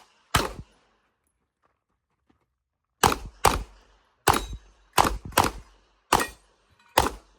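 Handgun shots on an IPSC stage: one shot about half a second in, a pause of about two and a half seconds, then seven shots in quick succession over about four seconds, some in fast pairs.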